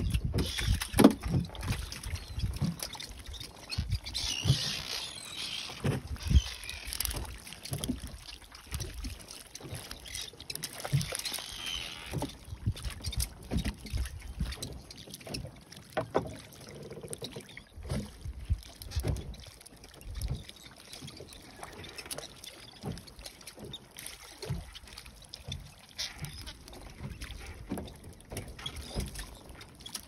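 Water slapping against the hull of a small wooden fishing boat, with irregular low knocks and thumps on the boat. Brief splashy hiss about four seconds in and again about eleven seconds in.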